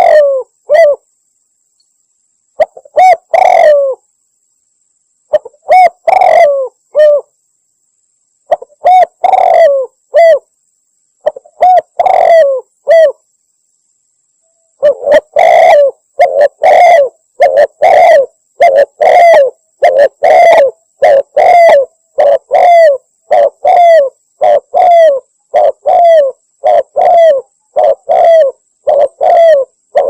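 Spotted dove cooing, a lure-call recording: short phrases of a few low coos separated by silent pauses, then from about halfway a fast, unbroken run of coos, about one and a half a second.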